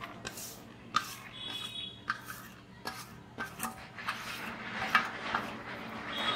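A stainless steel bowl knocking and scraping against the rim of a plastic bowl as grated cabbage is tipped out, with about five sharp knocks over the soft rustle of the shreds sliding in.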